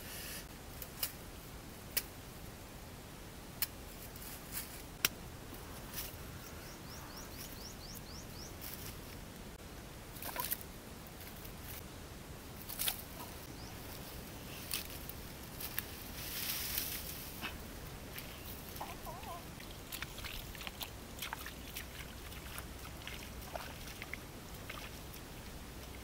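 Sharp clicks and crunches of a knife blade digging into dry soil in the first few seconds, then scattered rustling of leaves and footsteps through vegetation.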